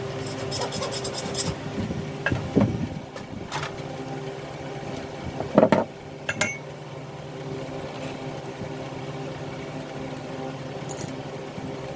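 Metal clinks and knocks from hand tools and alternator parts being handled, about five sharp strikes with the loudest near the middle, over a steady low electrical or machine hum.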